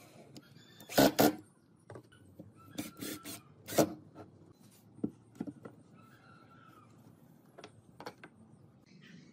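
Short bursts of an Ozito cordless drill driving screws into pine, mixed with sharp knocks and clacks of the wooden pieces being shifted and set down on a wooden slab. The loudest clacks come about a second in and near four seconds in, followed by a few lighter knocks.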